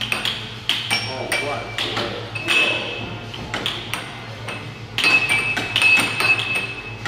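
Air hockey puck and mallets clacking in quick play, the puck knocking against the table rails with a short ringing click at each hit, in a rapid flurry about five seconds in. Voices are heard at the same time.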